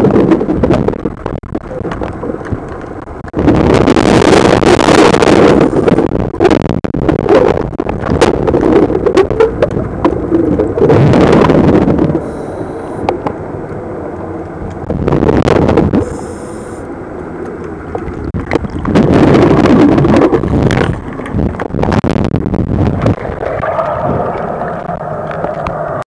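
Scuba diver's exhaled bubbles rushing past an underwater camera in loud bursts about every four seconds, with quieter stretches between breaths.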